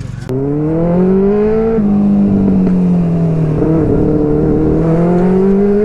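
Benelli TNT 300's parallel-twin engine revving hard through an Ixil aftermarket exhaust. The exhaust note cuts in loudly just after the start and climbs in pitch, eases off through the middle, then climbs again near the end.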